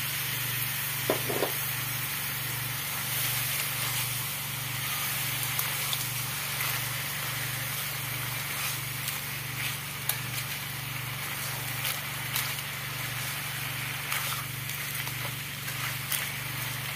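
Razor clams frying in a wok of curry sauce: a steady sizzle, with scattered knocks as a spatula turns the shells against the pan. A steady low hum runs beneath.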